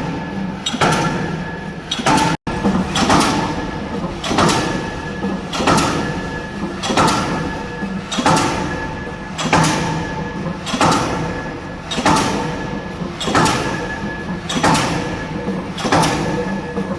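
K25 diesel pile hammer driving a spun concrete pile: a steady series of heavy blows, a little more than one a second, each ringing briefly, with a momentary gap about two and a half seconds in.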